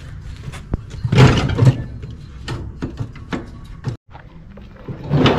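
Metal clunks and knocks from handling parts on a tipped-over riding mower's rear transaxle, with scattered sharp clicks, a louder cluster of thuds about a second in and another thud near the end.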